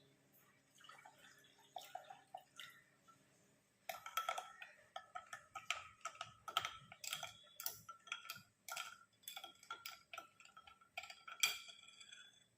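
Quiet, irregular clicks and clinks of dishes and kitchen items being handled, sparse at first and busier from about four seconds in.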